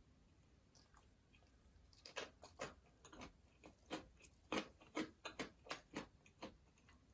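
Close-up chewing of food, about a dozen short chews at two to three a second, beginning about two seconds in after a quiet start.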